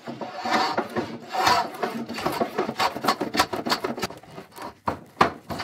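Hand plane shaving a wooden board, stroke after stroke, each a rasping hiss as the blade cuts a shaving. The strokes come close together at first, then a few separate strokes near the end.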